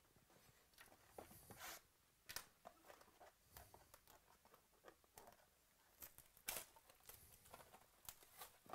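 Plastic shrink-wrap crinkling and tearing as it is peeled off a trading-card box: faint, irregular crackles.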